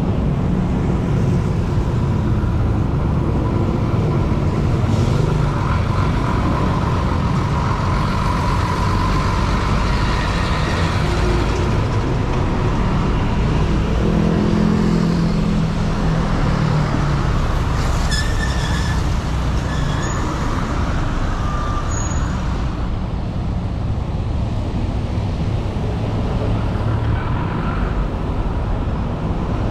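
Dense city road traffic heard from a bicycle: a steady rumble of engines and tyres, with a heavy vehicle's engine swelling and fading as it passes about halfway through. A few short high squeals come about two-thirds of the way in.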